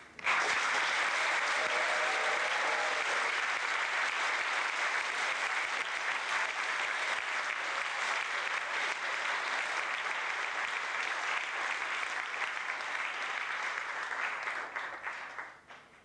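Audience applauding: the clapping breaks out suddenly, keeps up steadily, and dies away near the end.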